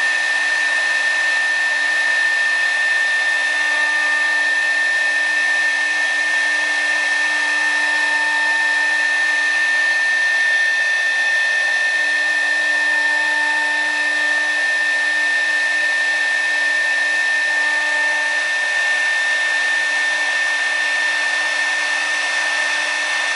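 CNC router spindle running with a steady high-pitched whine while its bit engraves a sheet of acrylic, with brief fainter tones now and then every few seconds.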